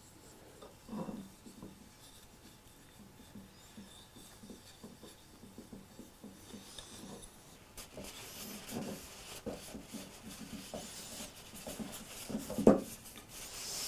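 Hand work on wood: soft, repeated rubbing and scraping strokes, busier in the second half, with a single sharp knock about a second before the end.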